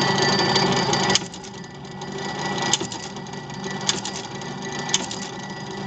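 GBC 111PM electric binding punch's motor running steadily, then cutting off with a sharp click about a second in. Three more sharp clicks follow about a second apart, and the machine starts up again near the end.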